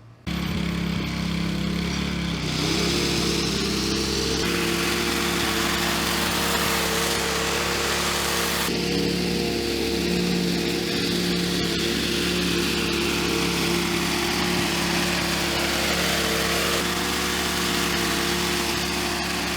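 McLane gas-powered reel lawnmower running and cutting grass: a steady engine drone with the reel spinning against its freshly reground rail. It starts abruptly just after the start, shifts in tone a few times, and cuts off abruptly near the end.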